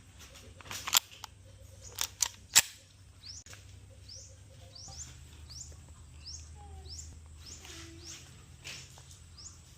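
Four gunshots in the first three seconds, the last one the loudest, then a bird calling in short rising chirps, about two a second.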